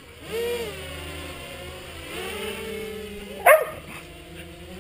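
A dog barks once, sharply, about three and a half seconds in. Under it, the motors of a small racing quadcopter whine steadily, their pitch sliding up and down as the throttle changes.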